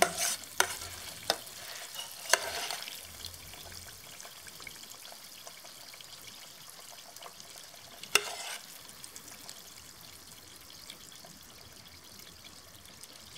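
Metal spoon clinking against a metal pot and a stainless-steel platter as hot tomato-and-butter sauce is scooped and dabbed over yogurt. There are a few sharp clinks in the first couple of seconds and one more about eight seconds in, over a faint steady hiss.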